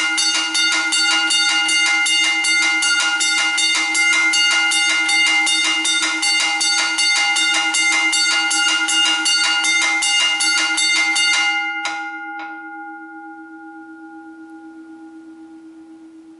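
McKenzie & Holland teardrop level crossing bell, the later aluminium model, ringing: its hammer strikes the gong rapidly and evenly, then stops about twelve seconds in, and the gong rings on and fades away.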